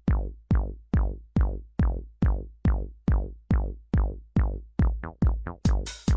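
Electronic dance music: a steady kick drum beating a little over twice a second. The beats quicken into a short roll about five seconds in, then hi-hats come in near the end.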